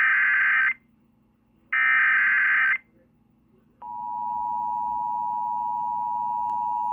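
Emergency Alert System broadcast: the last two one-second bursts of the SAME digital header, a buzzy warble separated by a second of silence, then after a pause the steady two-tone EAS attention signal begins and holds, announcing a tornado warning.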